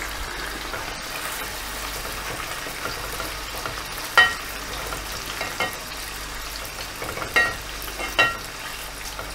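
Pieces of meat frying in hot oil in a heavy pot, a steady sizzle. A spatula clinks against the pot four times in the second half as the meat is moved.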